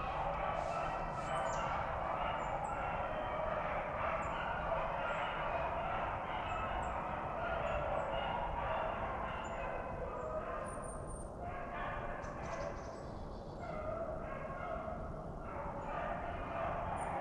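A pack of rabbit hounds baying in chorus as they run a rabbit, many voices overlapping without a break.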